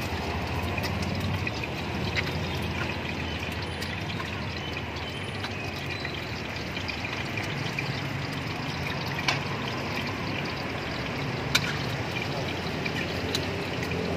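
Eggs frying in hot oil in a wok, a steady sizzle, over the low hum of the stall's burner. A few sharp clicks of a metal spatula against the pan and the plastic container as noodles are scooped out.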